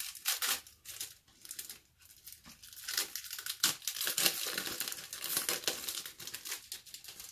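Thin plastic shrink wrap being torn and crumpled by hand: a dense crinkling crackle that is sparse at first, thickens about two seconds in and thins out near the end.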